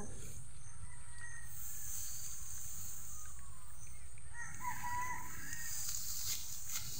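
A rooster crowing once, a call of about a second starting some four and a half seconds in, over a steady low rumble; two faint short snaps follow near the end.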